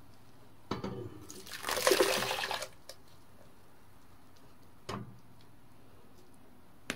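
Ground mugwort purée poured from a blender jug into an empty stainless steel pot, a wet splashing pour lasting about a second and a half. A short knock comes just before the pour, and another about five seconds in.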